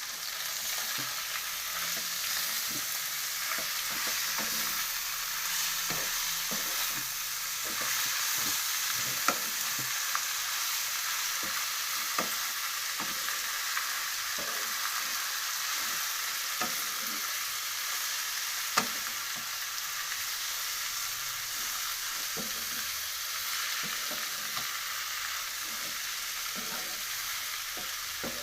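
Food sizzling steadily as it fries in a pan, stirred with a utensil that knocks and scrapes against the pan every second or so, with a couple of sharper clicks.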